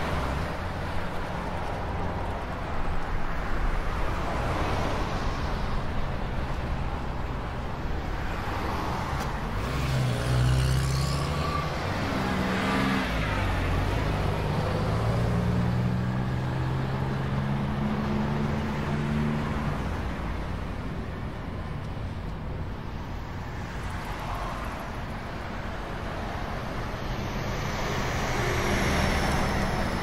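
Road vehicle in motion, heard from inside the cab: steady engine hum and tyre and road noise on asphalt. The engine note shifts in pitch between about 10 and 20 seconds in.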